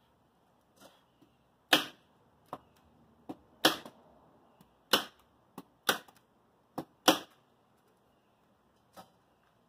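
Staples being driven through house wrap into OSB sheathing: about a dozen sharp snaps at an uneven pace, five of them much louder than the rest.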